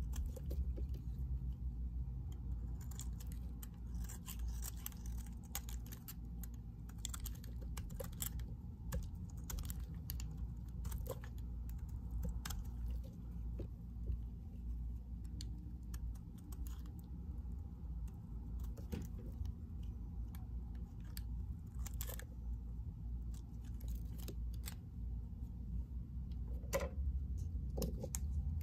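Utility knife blade shaving thin curls off a bar of white soap: irregular crisp clicks and scrapes as the flakes snap off and drop, over a low steady rumble.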